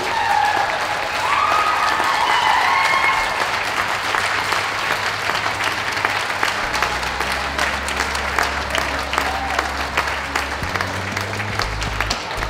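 Audience clapping steadily in a lap-of-honour ovation. Low, steady music notes come in about halfway through.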